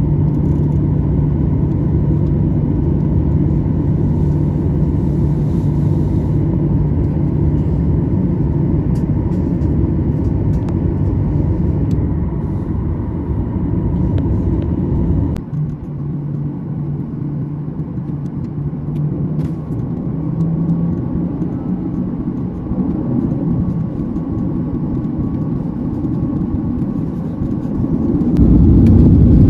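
Cabin noise of a Boeing 737-900ER taxiing: the steady rumble and hum of its CFM56-7B jet engines and rolling wheels, dropping quieter about halfway through. Near the end the engines spool up and the noise rises sharply as the takeoff roll begins.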